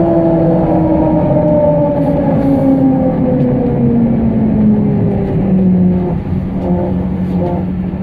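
Trolleybus electric traction drive whining, heard from inside the cabin over the rumble of the ride. The whine falls steadily in pitch over about six seconds as the trolleybus slows.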